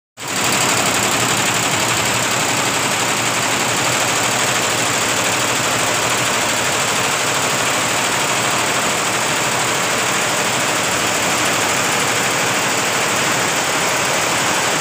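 Industrial multi-head, multi-needle computerized embroidery machine running steadily as it stitches.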